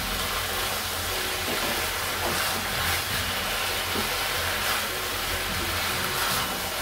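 Sliced mushrooms and green chillies sizzling as they are stir-fried in a non-stick pan, a spatula scraping and turning them, over a steady hiss and low hum.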